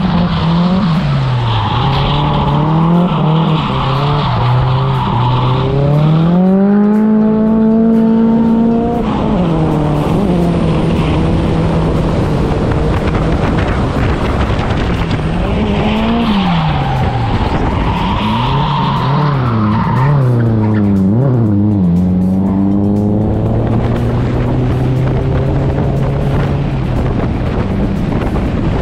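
Drift cars' engines revving hard with tyre squeal as they slide through a corner, heard from inside the chasing car. After the first corner the engine climbs steadily in pitch on a short straight, then a second burst of squeal comes about sixteen seconds in, followed by quick up-and-down revving and another steady climb.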